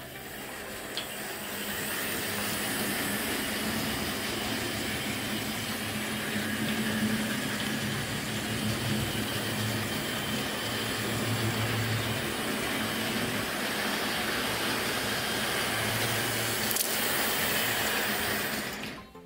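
Hornby 00-gauge model trains running on the track, among them the Smokey Joe locomotive hauling the 75T breakdown crane: a steady rushing rumble of small electric motors and wheels on rail, with a faint varying hum underneath. It builds up over the first couple of seconds.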